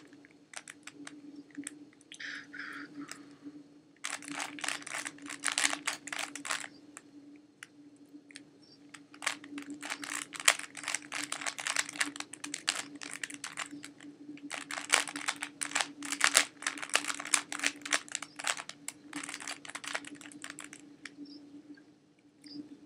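Plastic 3x3 Rubik's cube, an ordinary store-bought one, not a speed cube, being turned fast: dense clicking and clacking of the layers in bursts of a few seconds with short pauses between, as the solver works through the solve.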